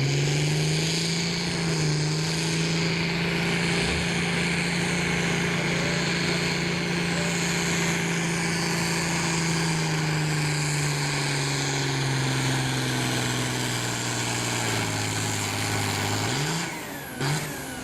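Farm pulling tractor's engine running flat out under heavy load as it drags the pulling sled, one steady high note that slowly sags lower as the load builds. Near the end the throttle comes off and the sound falls away, with a brief rev just after.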